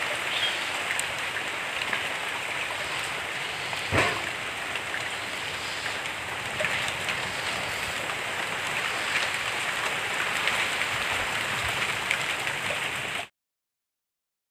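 Steady rain falling on tree foliage: an even hiss of rain dotted with small drop taps, with one sharper tap about four seconds in. It cuts off suddenly near the end.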